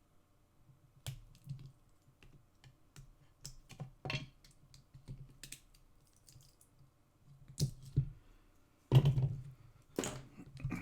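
Scattered clicks and knocks of a plastic battery-pack case and hand tools being handled during disassembly, the heaviest about nine to ten seconds in.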